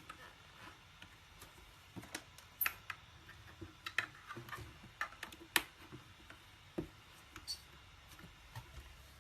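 Mechanical keyboard keys pressed one at a time: an irregular scatter of sharp, separate clicks, thickest through the middle and thinning toward the end.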